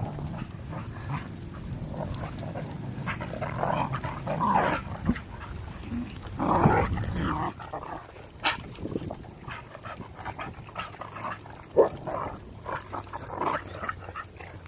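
Two dogs play-fighting: growly dog vocalising in irregular bursts, with scuffling and scattered clicks as they wrestle on wood chips.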